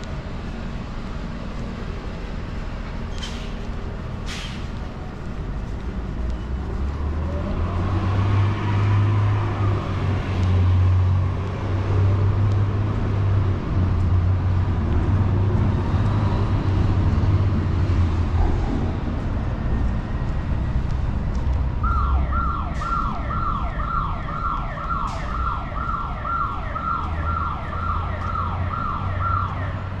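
City traffic going by, with a heavy vehicle's low engine rumble swelling and fading. Later comes an electronic alarm sound, a steady high tone with fast repeating falling sweeps, about two or three a second, lasting some seven seconds and then cutting off suddenly.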